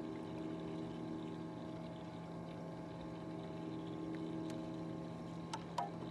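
A small electric motor on a fishing boat humming steadily at one even pitch. A few light clicks come in the last two seconds.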